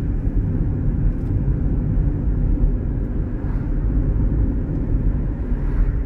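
A car driving on the road, heard from inside the cabin: a steady low engine and tyre rumble.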